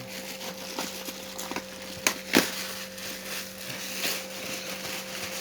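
Plastic packaging of a shoe parcel being handled and crinkled open, with scattered crackles and two sharp snaps a little after two seconds. A steady low hum runs underneath.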